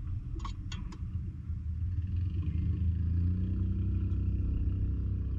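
A distant motor engine droning steadily over a low rumble, its hum growing clearer about two seconds in. A few light clicks sound in the first second.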